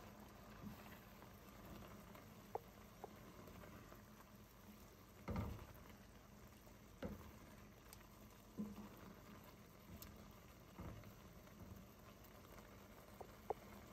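Thick chickpea curry in a pan being stirred with a wooden spatula, the spatula scraping and knocking through it, with a few short soft knocks and pops over a faint hiss; the loudest comes about five seconds in.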